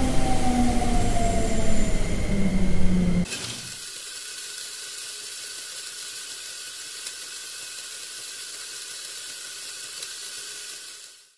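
Plarail toy EF66 locomotive's battery motor whirring and its wheels rattling on plastic track, the whine falling a little in pitch, then cutting off suddenly about three seconds in as the train halts at the end buffer, leaving only a faint steady hiss.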